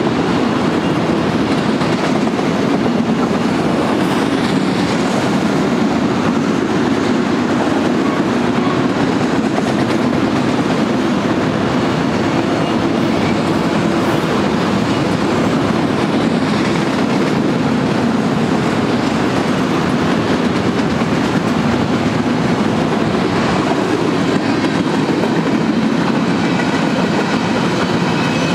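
Freight-train autorack cars, then bulkhead flatcars, rolling past close by: a steady, unbroken noise of steel wheels on rail.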